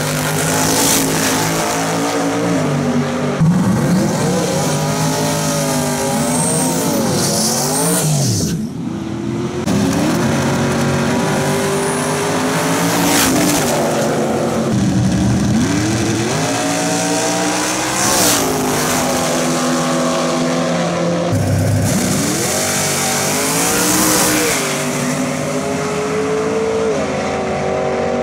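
Drag-race car engines revving hard and launching down the strip, one car after another. Their pitch sweeps up and falls back repeatedly, and the sound changes abruptly every few seconds as a new car takes over.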